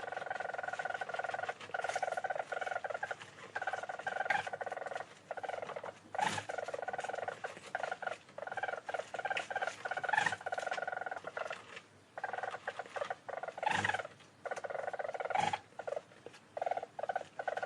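A small weasel-family animal gives a rapid, pulsing trill in repeated runs of one to three seconds, with short pauses between them.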